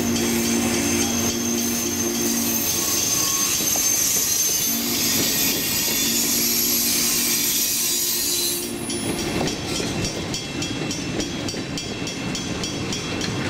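Passenger train cars rolling past on steel rails, their wheels squealing high in the first half and clattering over the track afterwards. A distant train horn chord is held twice, the second blast ending a little past halfway.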